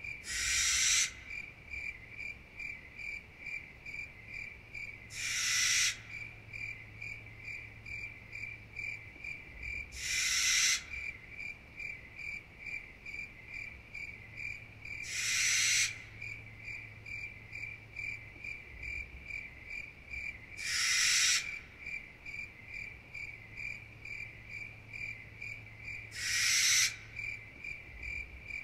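Night insect chorus: crickets chirping steadily at about two to three chirps a second, with a louder, rasping insect buzz that swells for under a second and cuts off, six times at roughly five-second intervals.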